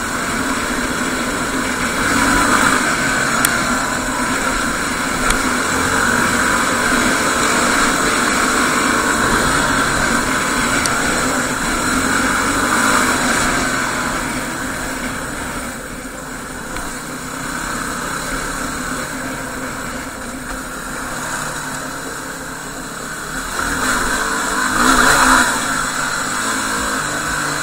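A 2016 Yamaha WR250R's single-cylinder four-stroke engine running as the bike rides along, getting louder briefly near the end.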